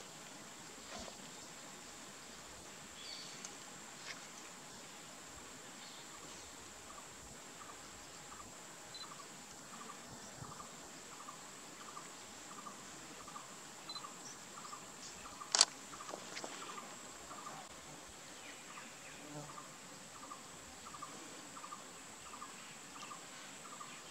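Outdoor insect chorus: a steady high-pitched insect drone, with a regular short call repeating about twice a second. A single sharp click stands out about two-thirds of the way through.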